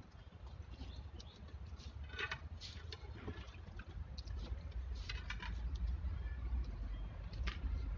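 Wet mud being scooped from a bowl and smeared and patted by hand onto a clay stove: a few short, wet slaps and squelches, over a steady low rumble.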